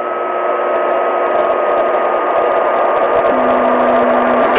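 CB radio channel carrying a keyed-up transmission with no speech: radio static with steady whistling tones, the lower tone stepping down in pitch about three seconds in. It is the sign of an operator holding a dead key through a high-power amplifier.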